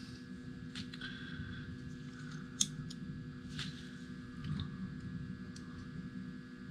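Faint clicks and light handling noises of a small ribbon-cable connector and flat cable being worked by hand, with one sharper tick about two and a half seconds in, over a low steady hum.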